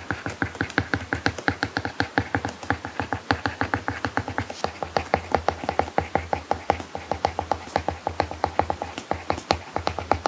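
Stylus tip writing on an iPad screen fitted with a paperlike matte protector: a quick, fairly even run of light tapping clicks, about seven a second, as each handwritten stroke lands. Soft background music runs underneath.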